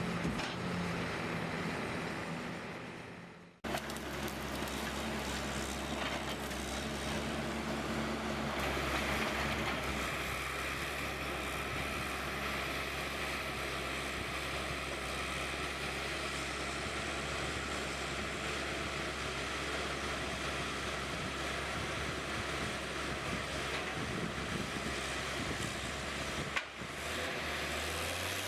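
Steady running of heavy machinery: a low engine hum under a broad mechanical noise. The sound changes abruptly about four seconds in and again near the end.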